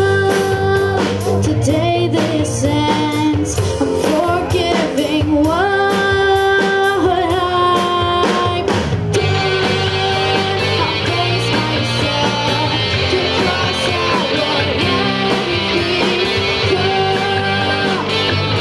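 Live rock band: a girl singing lead over electric guitars, bass and a drum kit. About halfway through the drum hits and sung lines give way to a denser, steadier guitar-heavy passage.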